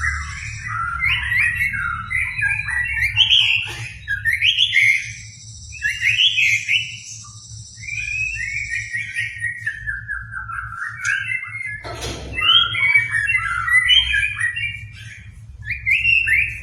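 White-rumped shama (murai batu) singing a long run of rapid, varied whistled phrases with short pauses, over a low steady hum. There is one sharp knock about twelve seconds in.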